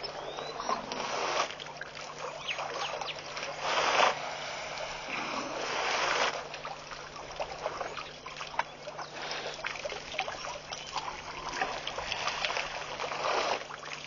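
African elephants drinking at a waterhole: water splashing and dribbling as they draw it up with their trunks. There are several louder splashy bursts, the loudest about four seconds in.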